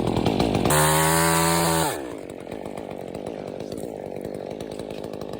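Chainsaw engine held at high revs for about a second, then released and dropping back to a steady idle for the rest of the time.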